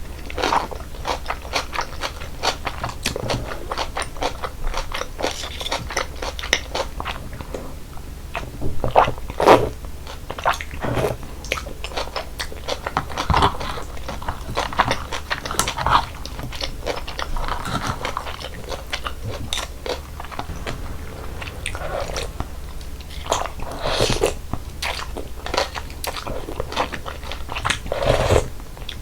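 Close-miked eating of icy cold naengmyeon: steady wet chewing with many small crisp crunches, and a few louder crunching bites about nine seconds in and again near the end.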